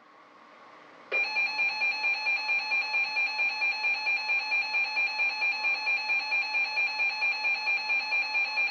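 A NOAA weather alert radio (Reecom R-1650C) sounding its alert alarm. A shrill electronic beeping starts about a second in and pulses rapidly, about four beeps a second, flagging an incoming warning ahead of the spoken dust storm warning.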